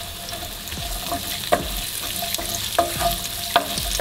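Chopped onion and garlic sizzling in sunflower oil in a frying pan while a wooden spatula stirs them. The spatula knocks and scrapes against the pan every second or so.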